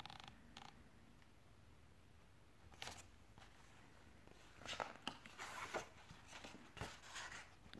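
Pages of a hardcover picture book being turned by hand: a faint tap, then a couple of seconds of soft paper rustling, then another tap, over near silence.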